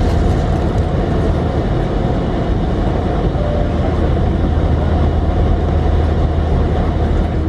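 Steady cabin noise inside an Airbus A330-200 airliner taxiing from the gate: an even rumble from the running jet engines and cabin air, with a constant low hum underneath.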